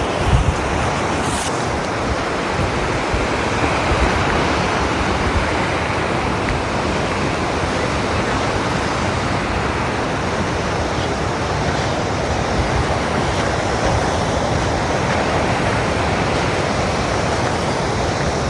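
Ocean surf washing steadily onto a beach, a continuous even rush of breaking waves, with a few low wind bumps on the microphone about half a second in.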